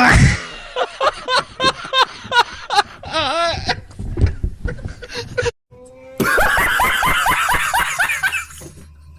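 Laughter sound effects: a run of short, pitched laughs at about three a second, then, after a brief silent cut, a second, faster laugh lasting about two seconds.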